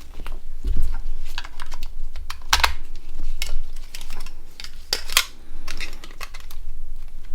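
Small plastic clicks and taps as a SIM card is fitted into a Nokia 6680 and its shell handled, coming irregularly, with a couple of low bumps against the work surface.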